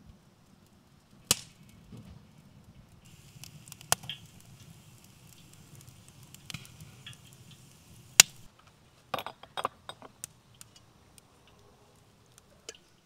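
Sharp clicks and clinks of metal cookware and utensils, scattered through, with single loud ones about a second in and about eight seconds in and a quick cluster around nine to ten seconds. A soft, steady hiss runs through the middle few seconds.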